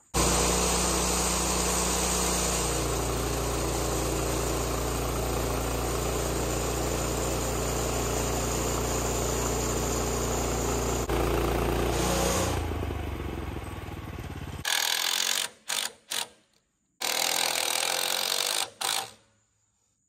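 Portable band sawmill running as it is pushed through upright poplar log rounds, cutting thin cross-section slices. Its engine note drops about three seconds in and stays steady, then dies away after about twelve seconds, followed by several short, abruptly cut bursts of the same sawing noise.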